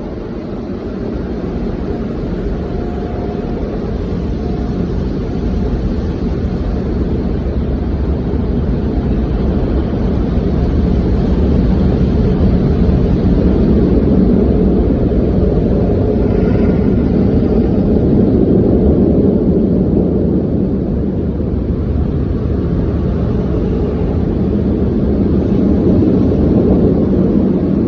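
Automated car wash machinery running around the car: a steady, loud, low noise that grows louder over the first dozen seconds and then holds.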